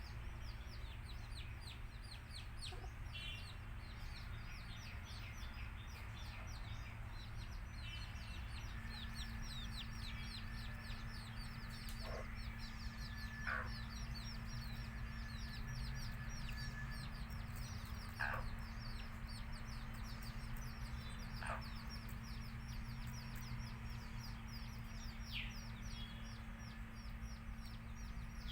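A brood of baby chicks peeping continuously in short, high, falling chirps, with a hen clucking a few times over them. A steady low hum runs underneath.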